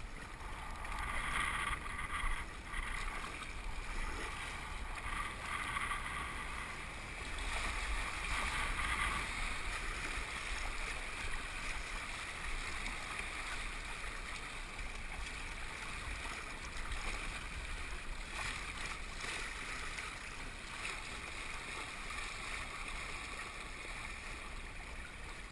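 Steady rushing of river rapids heard from a kayak running them, an even hiss with a low rumble underneath.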